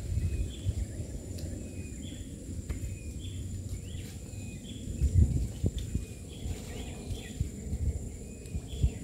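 Outdoor forest-river ambience: an uneven low rumbling noise, loudest about five seconds in, under a short high chirp that repeats about three times every two seconds, with a faint steady high-pitched buzz behind it.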